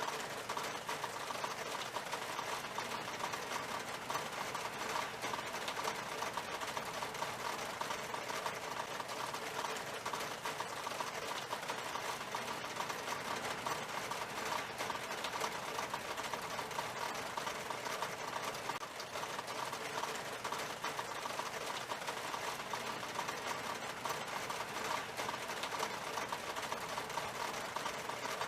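Rain falling steadily on a glass window pane: a dense, even patter of drops with no change in strength.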